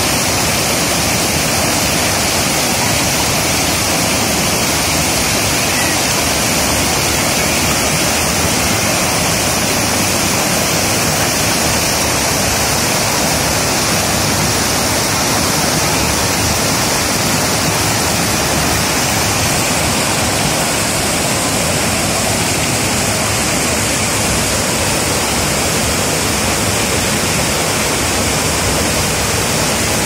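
Water cascading over low sandstone ledges of a natural waterfall into shallow pools: a loud, steady rushing roar with no breaks.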